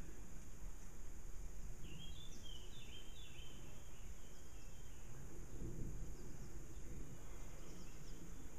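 Outdoor ambience: a steady low rumble of background noise, with a few faint bird chirps about two seconds in. No shot is fired.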